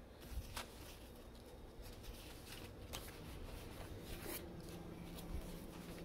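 Faint rustling and a few light clicks as pre-cut shelf liner sheets are handled and laid out.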